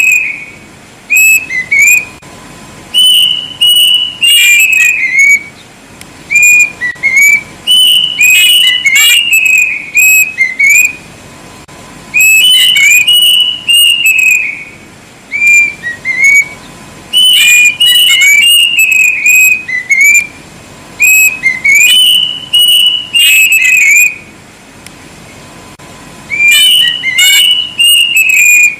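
Kedasih cuckoo (Cacomantis) singing loudly: phrases of clear whistled notes that start high and step down in pitch, repeated every four to five seconds with short pauses between.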